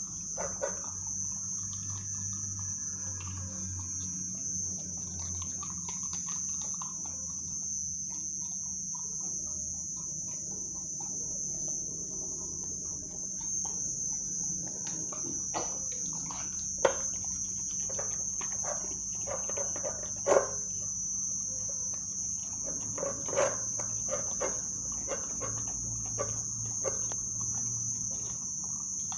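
American Pit Bull Terrier puppy eating raw food from a steel bowl: wet chewing and licking, with several sharp clicks and knocks against the bowl in the second half. Crickets chirr steadily and high-pitched throughout.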